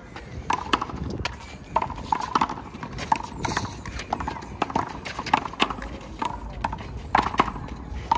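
A handball rally: the small rubber ball is slapped by hand and smacks off the wall and court in quick, irregular succession, a dozen or more sharp hits.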